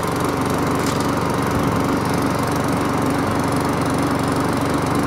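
McCulloch rotary lawn mower's Briggs & Stratton 450 series single-cylinder petrol engine running steadily at an even speed, just started after priming. It is not hunting, and it sounds all right.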